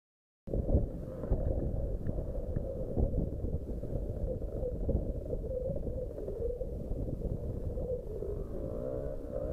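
Wind buffeting a helmet-camera microphone, starting abruptly about half a second in. Through it runs the wavering engine note of a dirt bike revving across a field some way off.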